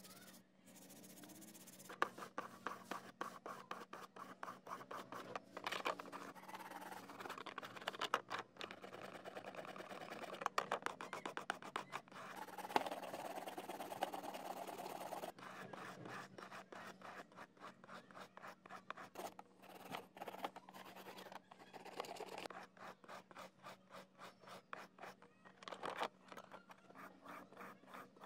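Toothbrush bristles scrubbing a smartphone circuit board: rapid back-and-forth brushing strokes that come in runs with short pauses.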